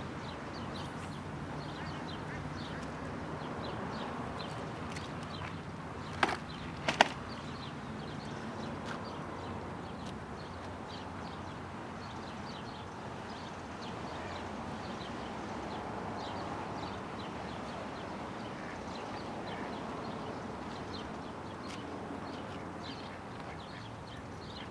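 Steady outdoor background noise with faint, short high chirps scattered throughout, and a few sharp clicks: a double click about six seconds in and another a second later.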